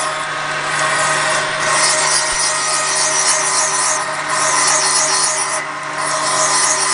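Powered valve-seat cutter running steadily, its carbide tip scraping a 70-degree angle into a hard exhaust valve seat insert. The high scraping comes in spells with three brief breaks over the low, steady hum of the motor.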